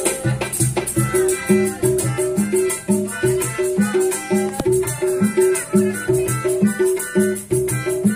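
Street buskers playing an upbeat tune without singing. A pianika (melodica) melody runs over a bouncing plucked bass line, with a shaker rattling in a steady beat.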